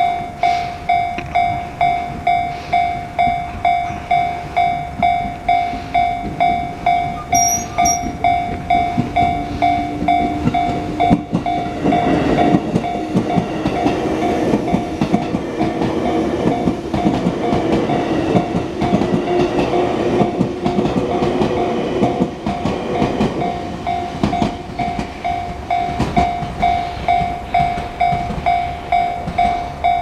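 Japanese level-crossing alarm ringing in an even, repeating electronic ding throughout, while an electric train passes through the crossing from about 11 to 24 seconds in, its rumble and wheel noise on the rails rising over the bell and then fading.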